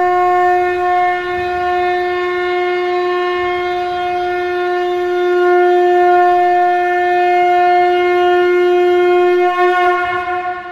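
A conch shell (shankh) blown in one long, steady note with strong overtones, wavering slightly near the end.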